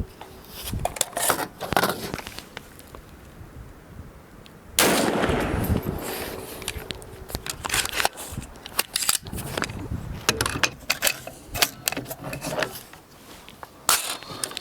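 Gunshots from a 7.62x39 AR-15 rifle: one loud shot with a long echo about five seconds in, and a quick run of sharp cracks from about eight to thirteen seconds.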